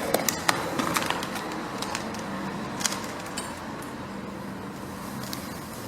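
A few scattered sharp clicks and knocks, most of them in the first second, over a faint steady low hum.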